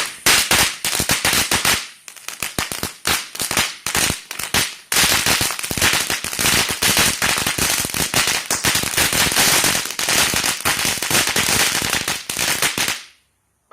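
Lil' Patriot 'Rattlesnake' novelty firework crackling: a dense run of loud sharp cracks, thinning out for a few seconds, then a rapid continuous crackle that cuts off suddenly near the end.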